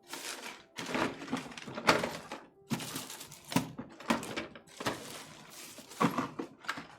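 Small keyboard parts being handled: a run of irregular clacks and rattles, several to the second.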